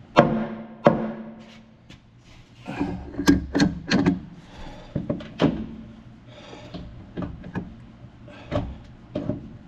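Irregular metal clunks and knocks from a steel hydraulic cylinder being turned and shoved by hand to close it up to length, a few of them ringing briefly, with a tight cluster about three seconds in.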